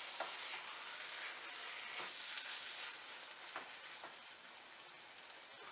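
Gajrela (grated-carrot halwa cooked with ghee) sizzling faintly in a pan while a spatula stirs it, with a few soft scrapes. The sizzle fades steadily.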